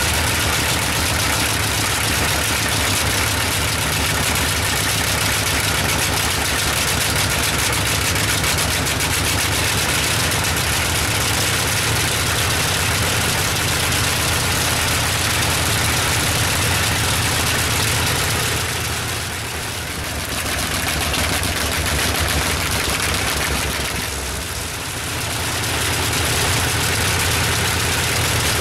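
Bristol Hercules fourteen-cylinder, double-row sleeve-valve radial engine running steadily with its propeller turning. Its sound eases off briefly twice, about two-thirds of the way through and again a few seconds later.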